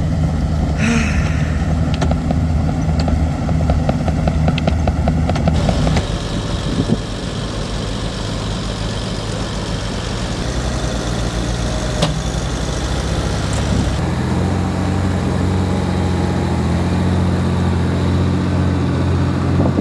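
Tractor engine running steadily, its note changing abruptly twice, with a few sharp clicks.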